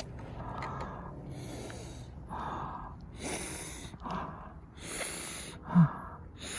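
A person blowing up an air mattress by mouth: repeated heavy breaths, a deep inhale then a long blow into the valve, about four times over.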